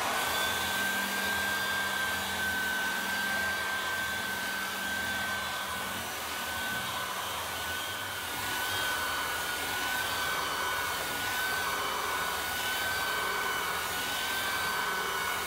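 Floor edger sander running an 80-grit silicon carbide disc across hardwood floorboards: a steady, slightly wavering high motor whine over the hiss of the disc cutting the timber.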